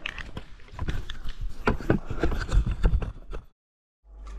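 Hurried footsteps, a quick irregular run of knocks and thumps, cutting off abruptly about three and a half seconds in.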